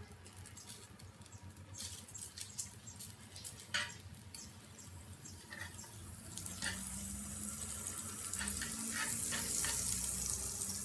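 Margarine melting in a hot ceramic-coated frying pan: scattered crackles and ticks at first, then a sizzle that builds steadily through the second half as the fat heats up.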